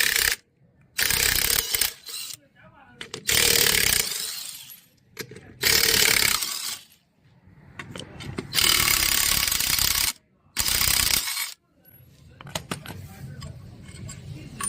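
Impact wrench rattling in short bursts, about five runs of a second or so each with brief pauses, loosening fasteners during half-shaft removal on a disc-brake tricycle. Lighter metal clinking follows near the end.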